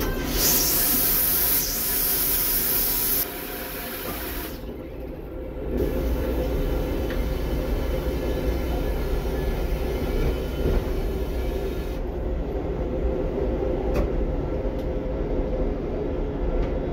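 Microphor-style train toilet flushing. A loud rush of air and water starts just after the beginning and lasts about three seconds, then drops lower and stops briefly about five seconds in. A steadier hiss of water running into the bowl follows and stops about twelve seconds in, all over the steady rumble of the moving train.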